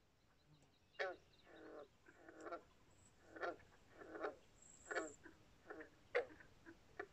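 Frogs calling: a run of short croaks, about one or two a second, starting about a second in.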